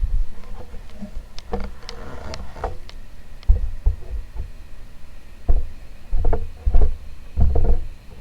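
Casablanca Delta II ceiling fan running, its airflow buffeting the microphone in repeated low rumbling gusts, with a few sharp clicks in the first few seconds.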